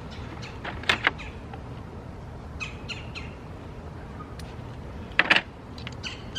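Sharp metallic clicks and clinks of hand tools being handled from a small tool set: two clicks about a second in and a quick cluster about five seconds in. Birds chirp faintly in between.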